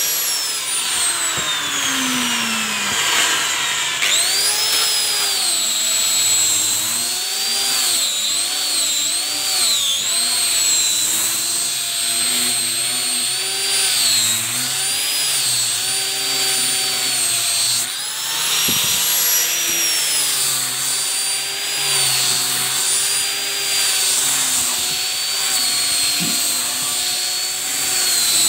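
Maktec hand grinder with a 180-grit sanding disc running at high speed on teak wood. It makes a steady high whine whose pitch sags and recovers again and again as it is pressed into the work.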